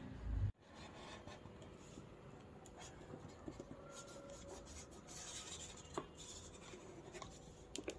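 A low rumble cuts off abruptly about half a second in. After it, a marker pen scratches faintly on paper, with light paper rustling and a few small clicks.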